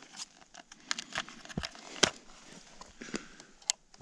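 Trail camera being handled and its plastic case opened: a run of small plastic clicks and knocks, the sharpest about two seconds in.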